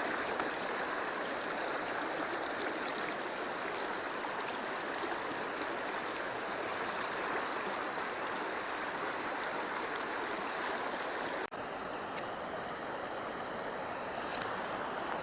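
Steady rush of stream water flowing, with a brief break about eleven seconds in, after which it sounds slightly duller.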